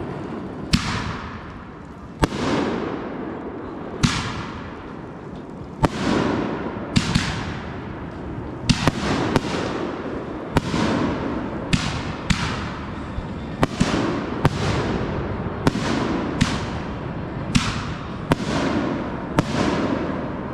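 Fireworks going off in a steady string: about twenty sharp bangs, roughly one a second and sometimes two in quick succession, each followed by a hissing crackle that fades away.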